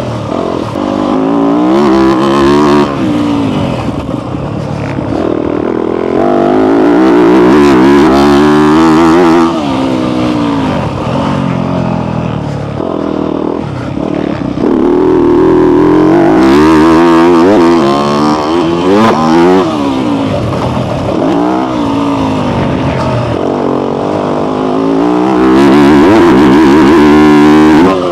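Yamaha motocross bike's engine revving hard under acceleration, its pitch climbing and dropping again and again through the gears, with several long stretches held at high revs.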